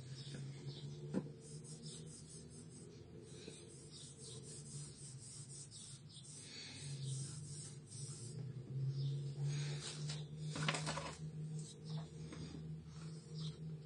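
Hands handling and rubbing the plastic-and-metal body of a dismantled HP 17A toner cartridge: soft irregular scraping and rubbing, with a sharp click about a second in and a louder scrape about three-quarters of the way through, over a steady low hum.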